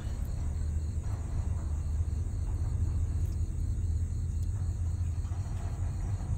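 A steady low rumble with no clear beat, and a faint, even high trill above it, of the kind night insects make.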